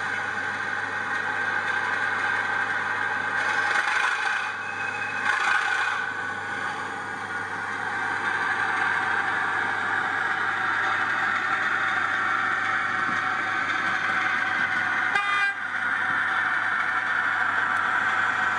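Sound-fitted 00 gauge model diesel locomotive's DCC sound decoder playing a steady engine sound through its small onboard speaker, with two short horn blasts about four and five and a half seconds in. A brief sharp click comes about fifteen seconds in.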